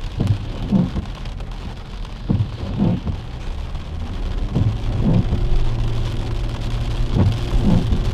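Heavy rain beating on a moving car's windscreen and roof, heard from inside the cabin over a steady low road rumble. The windscreen wipers sweep in pairs of strokes every two to three seconds.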